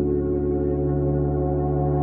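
Background music: a slow ambient track of sustained, gong-like tones over a steady low drone.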